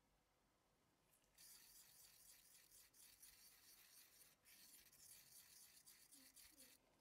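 Faint scratchy scraping of a wooden stir stick against the inside of a small plastic cup, stirring a dark colorant into a liquid in close, quick strokes that start about a second and a half in and stop briefly partway through.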